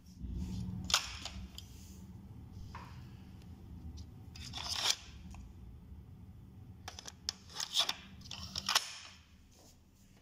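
Tape transport of Deck 1 on a Pioneer CT-W630R cassette deck running with its cassette door open: a low steady hum with scattered clicks and knocks from handling, the hum stopping about nine seconds in.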